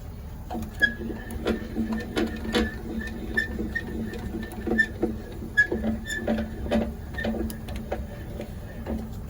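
Boat trailer's tongue jack being hand-cranked: a run of irregular metallic clicks over a steady mechanical whine, starting about half a second in and stopping just before the end, with a truck idling underneath.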